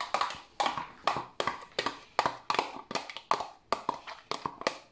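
Repeated sharp taps, about three a second: a small plastic tub being knocked to shake mayonnaise out into a plastic mixing bowl.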